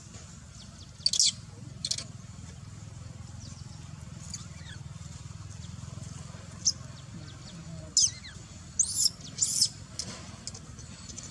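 Short, high-pitched animal calls: single squeaks around the first two seconds and one in the middle, then a quick run of several near the end, some dropping in pitch, over a steady low background hum.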